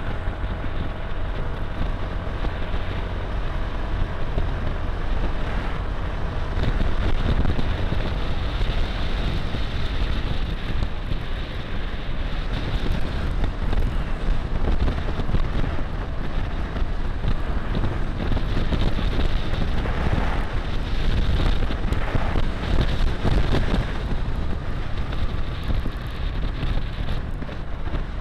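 Wind rushing over the camera microphone while riding an automatic scooter, with the scooter's engine and tyre noise running steadily underneath.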